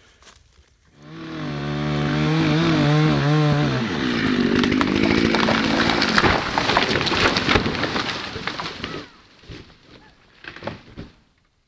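Two-stroke chainsaw running at a low, unsteady idle, then revved up and cutting into wood for about five seconds before it stops. A few short knocks follow near the end.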